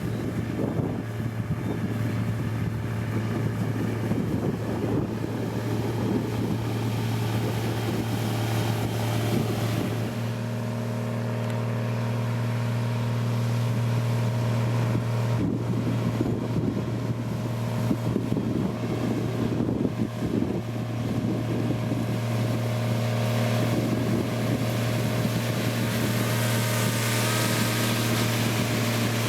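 Diesel engine of heavy road-construction machinery, a motor grader or road roller, running steadily under work, its note shifting slightly about ten seconds in.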